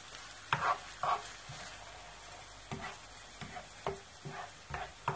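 Tomato sauce with onion and garlic sizzling softly in a non-stick frying pan while a plastic spatula stirs it, scraping across the pan in a series of short strokes, the loudest two about half a second and one second in.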